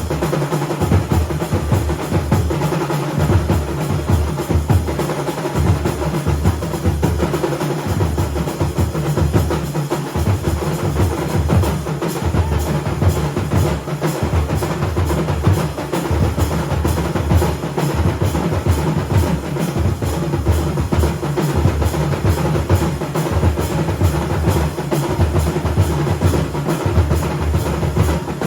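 Festival drumming: several drums beaten hard in a fast, steady, unbroken rhythm with deep booming low strokes.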